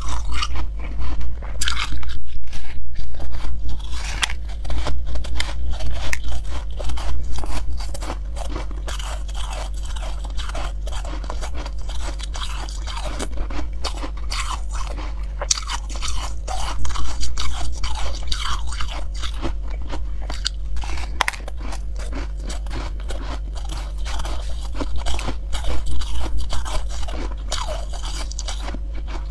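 Crunching and chewing of a crumbly chunk of white ice, close to the microphone, in dense crackly bites with louder runs near the start, in the middle and near the end.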